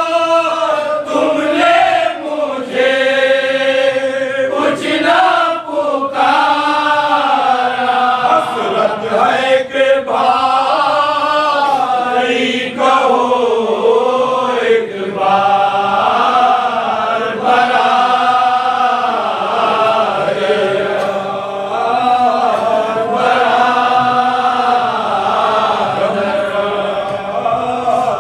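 A group of men chanting a marsiya, the Urdu elegy for Imam Husain, in unison into microphones. The melody is slow, with long held notes that rise and fall, and it carries on without a break.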